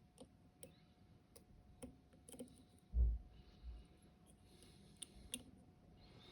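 Dimple-lock pick working the pins of a Dom IX 5kg cylinder: scattered light clicks, about two a second. A dull low thump about halfway through stands out as the loudest sound.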